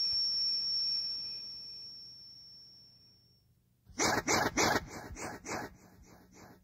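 Cassette horror sound effects: a roar fades out, then after a moment of silence comes a quick run of sharp strokes, about four a second, that tails off.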